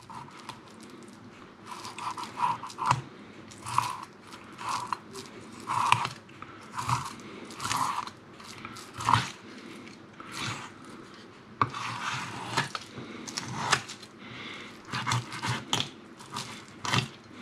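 Fishing knife cutting a sea bass fillet away from the backbone: irregular crunching and scraping strokes as the blade works along the bones.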